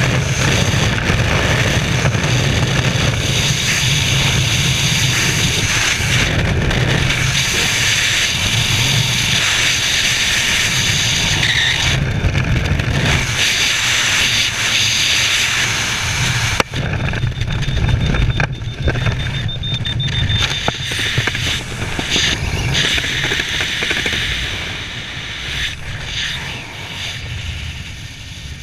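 Wind roaring over a helmet-mounted action camera's microphone in skydiving freefall, with a sharp snap about two-thirds of the way in. The roar eases over the last few seconds as the parachute canopy is open and the fall slows.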